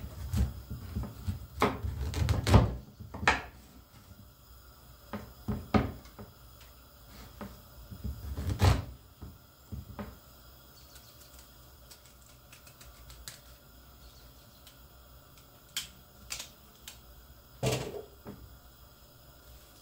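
Chef's knife cutting through hard raw quinces on a wooden cutting board: a close run of knocks and thuds in the first three seconds as the blade strikes the board, then scattered single knocks as the pieces are cut and set down.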